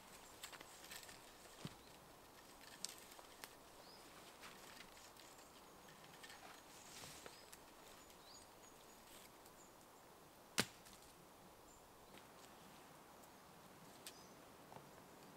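Very quiet woodland with faint rustling and a few small scattered clicks as a man handles cord and a tarp, and one sharp, much louder click about ten and a half seconds in.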